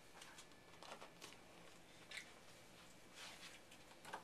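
Near silence: quiet room tone with a few faint soft taps and rustles.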